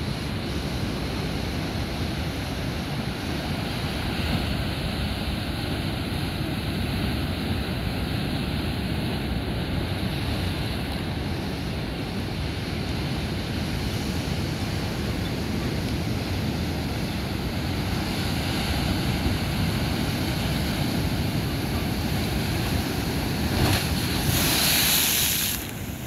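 Ocean surf breaking and washing over rocks as a steady, rumbling wash. Near the end a close wave surges and splashes through the rocks with a louder hiss.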